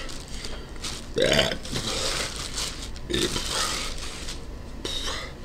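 A man burps loudly about a second in, with a smaller burp-like sound near the middle. Plastic bag crinkling around it as a shirt is pulled out of its packaging.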